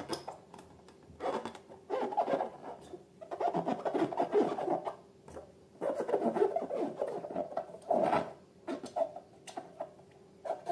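Slime and balloons being worked by hand: crackly squishing and rubbing in three or four bursts separated by short quieter gaps.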